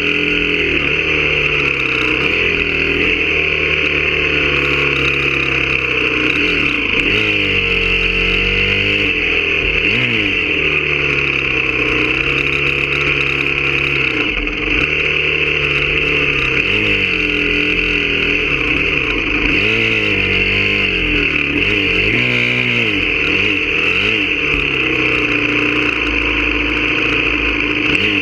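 Honda CRF250R's single-cylinder four-stroke engine revving up and down over and over as the throttle is opened and closed while riding rough ground, with a steady hiss over it.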